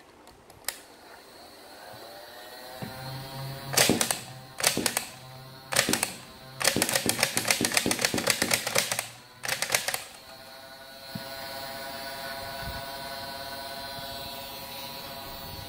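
Nerf N-Strike Barricade RV-10 flywheel blaster: its motor whines up to speed about a second in, then a few single dart shots with sharp clacks, followed by a quick clattering run of shots. The motor keeps up a steady whine after the firing stops.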